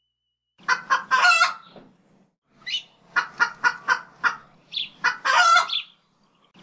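Chicken clucking in two runs: a few quick, sharp clucks, each run ending in a longer squawk. The second run starts about two and a half seconds in.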